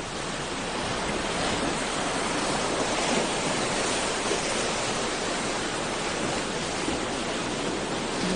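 Steady rushing noise of wind and sea water on an open boat, even and unbroken, with no engine tone or voices in it.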